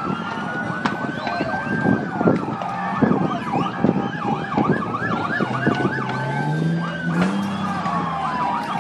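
Emergency-vehicle sirens sounding over one another: a slow rising and falling wail, joined by a fast yelp for a few seconds from about two seconds in. Scattered sharp cracks sound under the sirens.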